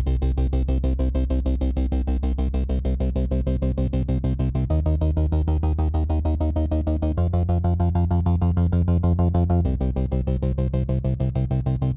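Background music: a synthesizer track with a fast, even pulse over sustained bass notes that change every two to three seconds.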